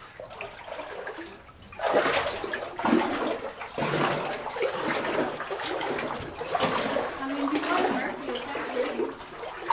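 People wading through water in a flooded mine tunnel, sloshing and splashing with each step. The sloshing grows louder about two seconds in and comes in uneven surges.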